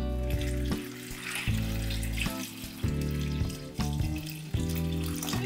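A stream of water poured into a stainless-steel saucepan of cut potato chunks, filling it, with background guitar music playing over it.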